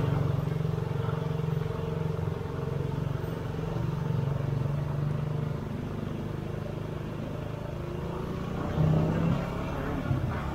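Motorcycle engine running steadily at low riding speed, picking up briefly about nine seconds in.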